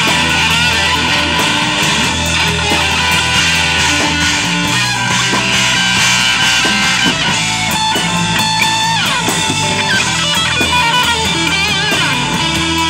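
Live blues band playing an instrumental passage: an electric guitar lead with bending, wavering notes and a sliding drop about two thirds of the way through, over bass, drums and keyboard.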